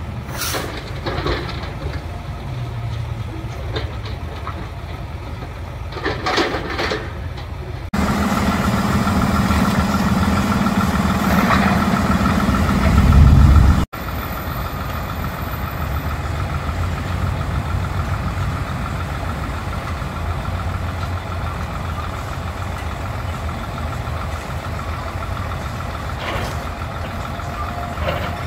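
Heavy diesel machinery running steadily: a John Deere excavator working a demolition rubble pile beside a dump truck, with a few short knocks. About 8 s in it gets louder, and a deep rumble builds before cutting off abruptly near 14 s.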